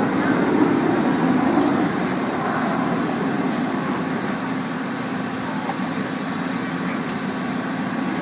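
An engine running steadily with a constant hum, with a few faint clicks over it.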